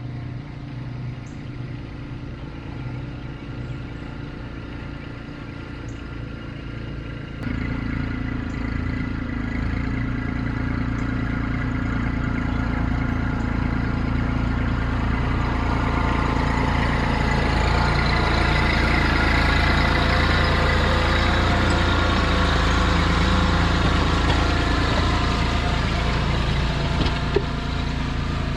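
Tractor engine running steadily. About seven seconds in it steps up sharply in level, as with more throttle, then grows louder and fuller toward the last third as it works.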